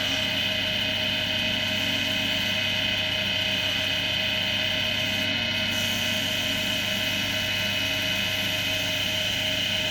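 Axminster AC240WL wood lathe running steadily, its motor giving an even hum with a high-pitched whine.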